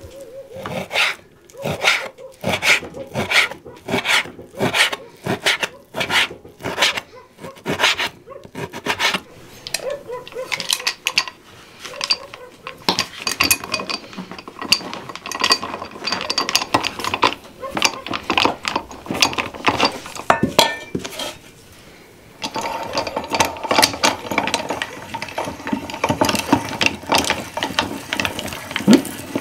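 Knife chopping meat on a wooden board in regular strokes, then the metal clinks and scrapes of a hand-cranked meat grinder being put together and screwed to the table edge. Near the end the grinder is cranked, a continuous grinding rasp as meat is fed through.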